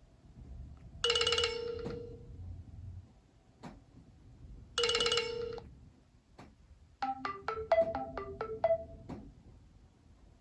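Nokia 808 PureView ringtone melody: two short, bright chime tones about four seconds apart, then a quick run of about a dozen short marimba-like notes starting about seven seconds in.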